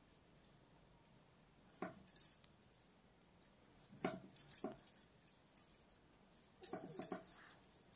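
Faint clicks and taps of knitting needles knocking together as stitches are slipped and worked, in three short clusters, about two seconds in, around four seconds and near the end.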